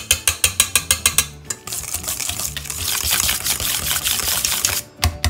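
Wire whisk beating softened cream cheese in a stainless steel bowl: rhythmic clicks of the whisk against the bowl, about six a second, which give way about a second and a half in to a continuous scraping swish as the whisking goes faster.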